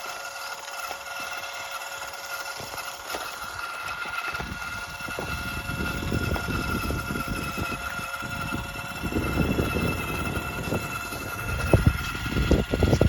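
Small electric motors of radio-controlled construction models whining steadily. A low rumble comes in about four seconds in, with a few sharp knocks near the end.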